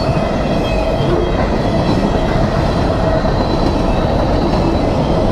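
Mixed freight train of mostly empty cars rolling past close by: a loud, steady rumble and rattle of wheels on rail, with a steady whine held through it.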